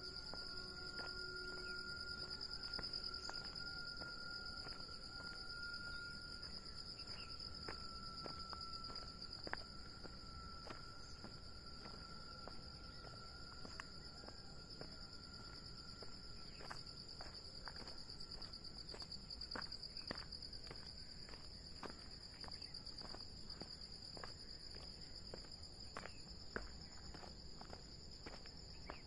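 Insect chorus shrilling as one steady, high, unbroken drone. A fainter, lower steady tone fades out about two-thirds of the way through, and faint scattered clicks come and go.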